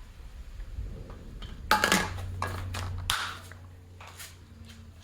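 Clanks and clicks of metal tools or engine parts being handled, loudest about two seconds in, with a low hum under them for a second or so.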